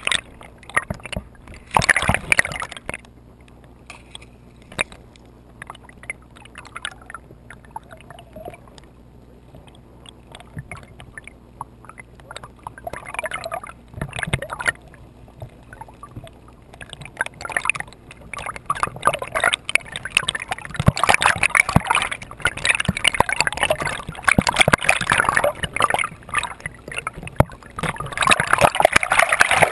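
Water gurgling and sloshing around a camera held underwater in a shallow river, with scattered crackles and clicks. It is quieter in the middle and grows into louder, steady splashing noise over the last third.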